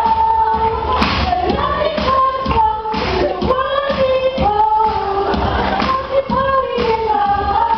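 Women singing a pop song over backing music with a steady beat.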